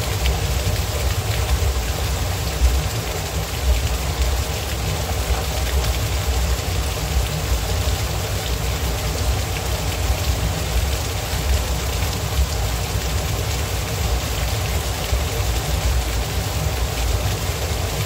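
Small waterfall splashing steadily onto rocks into a shallow pool: a continuous rush of falling water with a deep rumble underneath.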